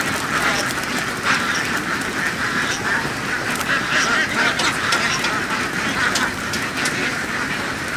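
A large flock of egg-laying ducks quacking all at once, many calls overlapping into a continuous din.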